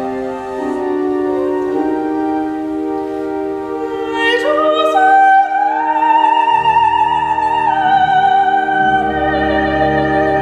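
Operatic soprano singing with instrumental accompaniment, climbing about four seconds in to a long high note held with vibrato.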